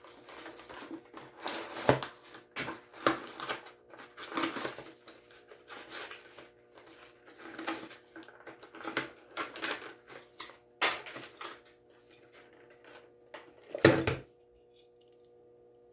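Plastic blister packaging of a diecast toy car being crinkled, cracked and torn open by hand: irregular crackles, clicks and rustles, with a louder clatter near the end before the handling stops.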